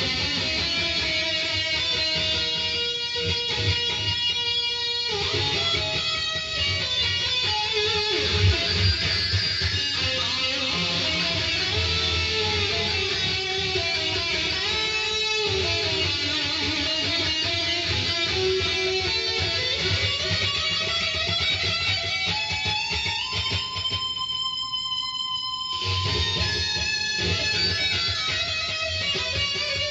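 Ibanez electric guitar played through a Boss GT-1 effects processor on a high-gain metal lead tone: distorted solo lines with bends and slides, low chugging notes in places, and a long held high note a few seconds before the end.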